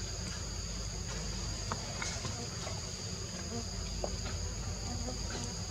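Steady, high-pitched drone of insects, two even tones held without a break, over a low rumble with a few faint ticks.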